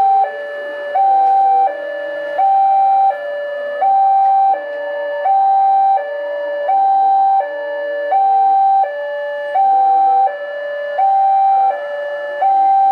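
Railway level-crossing warning alarm sounding a two-tone hi-lo signal. A higher tone alternates with a lower one, one high-low cycle about every one and a half seconds. The high tone is the louder of the two.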